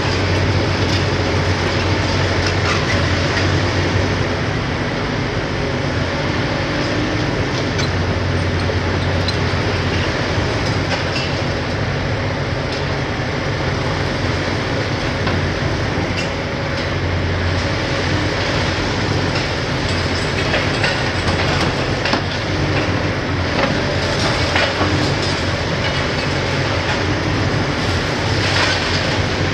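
Hitachi ZX870LCR demolition excavator working: its six-cylinder Isuzu diesel runs steadily under load while the crusher on the long-reach boom breaks up reinforced concrete. Sharp cracks and clatter of breaking concrete and falling debris are heard throughout.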